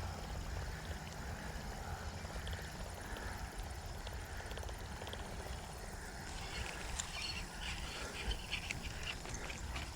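An animal calling in a quick run of short, clicky bursts for about three seconds, starting about six and a half seconds in, over a steady low rumble.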